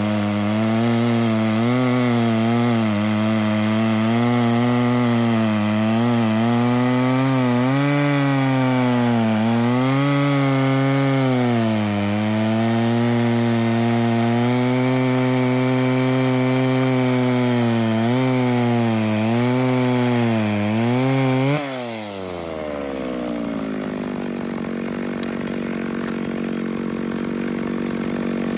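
McCulloch Pro Mac 650 two-stroke chainsaw, its carburettor ungoverned, at full throttle cutting through a thick log. The engine note sags and recovers over and over as the chain loads up in the wood. About three-quarters of the way through, the throttle is released and the revs fall quickly to a steady idle.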